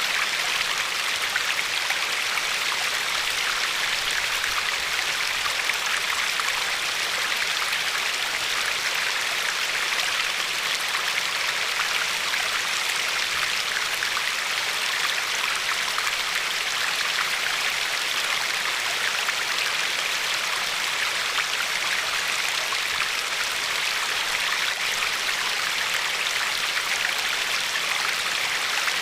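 River water flowing and lapping over a pebble shore: a steady, even rush with a fine crackle of splashes.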